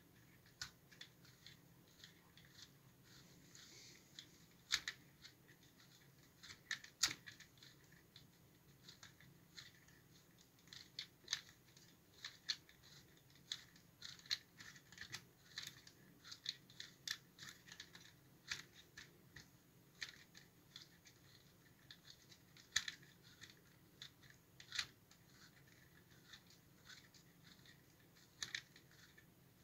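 Irregular sharp clicks and ticks of plastic Lego Technic gears and parts in an unmotorized model mobile crane, worked by hand to move its boom.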